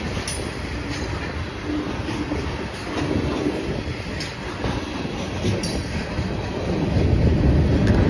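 Freight train tank cars and covered hoppers rolling past close by: a steady rumble of steel wheels on rail with a few sharp clacks over the rail joints. It grows louder near the end.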